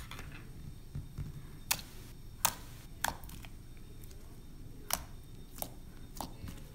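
Homemade white slime being poked and pressed with the fingers, giving about half a dozen sharp, wet clicks and pops at irregular intervals as air pockets in it burst.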